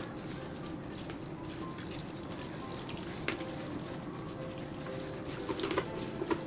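Kitchen tap running steadily into a plastic colander of leafy greens being rinsed and tossed by hand, with small splashes and clicks from the handling that come more often near the end.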